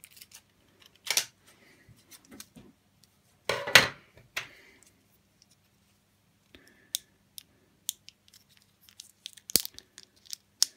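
Foil anti-static packaging being torn open by hand to free a small surface-mount chip. There is a short tear about a second in and a longer, louder rip at about four seconds, followed by small crinkles and clicks, with one sharp click near the end.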